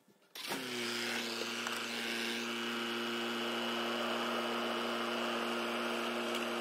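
Audi A4 B7 2.0 TDI four-cylinder diesel engine idling steadily, with the engine running while the cooling system is bled.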